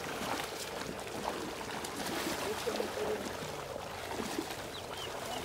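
Shallow muddy pond water splashing and sloshing as people wade and drag a net through it, with faint voices.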